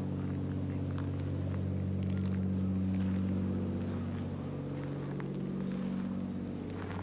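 Steady low drone of an idling engine, with a few faint ticks on top.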